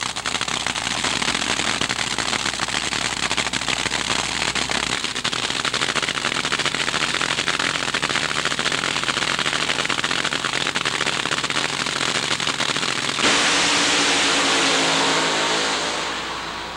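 Top Fuel dragster's supercharged nitromethane engine idling with a rapid crackle at the starting line. About thirteen seconds in it launches at full throttle, a sudden much louder run that fades as the car pulls away down the track.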